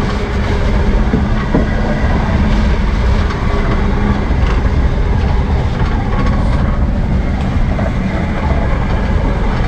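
Electric net hauler on a fishing boat running steadily, drawing a wet fishing net aboard over its metal rollers with a continuous mechanical rattle.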